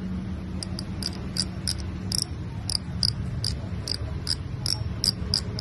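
Fishing reel clicker ticking, about three sharp, high-pitched clicks a second and slightly uneven: the loud ratchet sound of the Iroly Rengoku reel.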